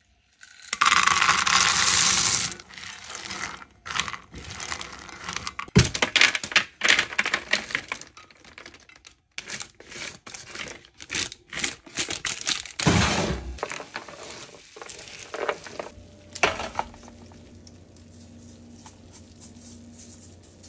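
Honey and butter foaming and sizzling in a pan for about two seconds. Then peanuts rattle and parchment paper crinkles as they are stirred with a silicone spatula on a baking sheet. The last few seconds are quieter, with a low steady hum and light ticks.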